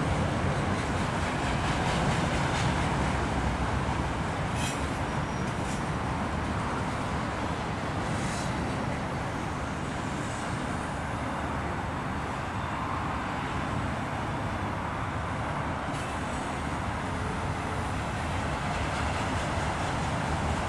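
Freight train of autorack cars rolling past: a steady rumble of steel wheels on rail, with a few faint clicks.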